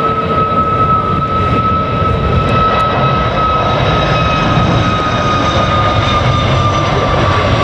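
Boeing 737 MAX 8 jet departing, its two CFM LEAP-1B turbofans at takeoff power: a loud steady rumble with a high whining tone that sinks slightly near the end.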